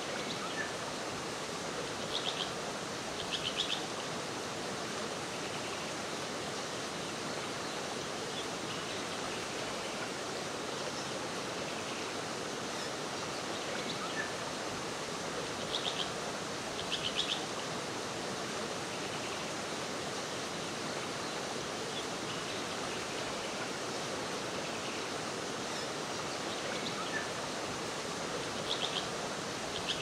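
Rainforest background of a steady, even rushing hiss. A bird's short, high, rapidly pulsed call comes in pairs three times, about every thirteen seconds.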